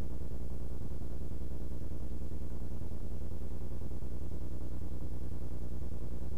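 Steady low hum made of many even tones, with faint hiss above it, unchanging throughout.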